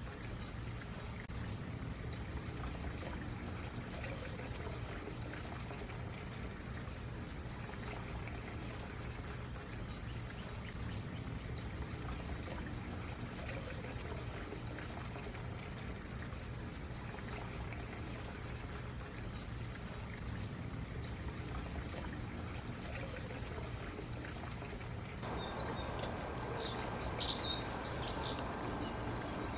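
Stream water running steadily over rocks. Near the end, a small bird starts chirping in quick, high calls.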